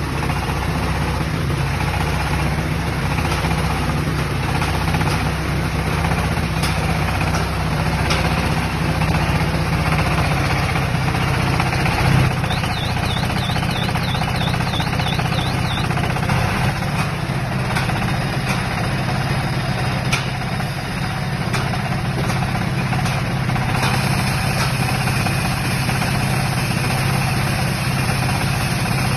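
Corn silage baling and wrapping machine running steadily, a low mechanical drone with scattered sharp clicks and knocks.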